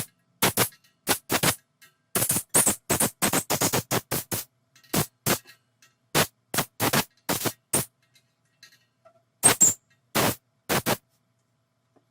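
Compressed air blasting in short bursts to blow dust and old glue out of the chair's spindle holes: a rapid series of sharp hissing puffs in clusters, with short pauses between.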